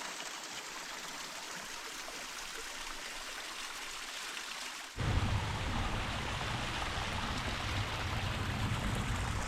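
Storm-runoff stream rushing steadily over rocks. About halfway through it cuts abruptly to a louder, deeper rush of water.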